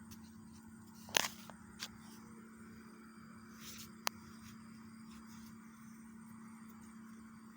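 A few sharp clicks and light knocks with a brief rustle, from handling small electrical fittings and tools while wiring a lamp holder terminal, over a steady low hum.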